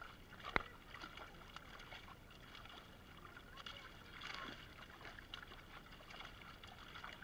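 Faint splashing and sloshing of live fish thrashing in shallow water inside a gathered cast net as hands pick them out, with a single sharp click about half a second in.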